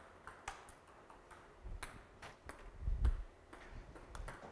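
Table tennis ball clicking off rackets and the table in an irregular run of sharp ticks during serve-and-receive practice. A dull thump about three seconds in is the loudest sound.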